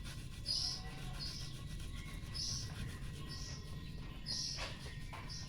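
A bird chirping: short, high chirps repeated about once a second.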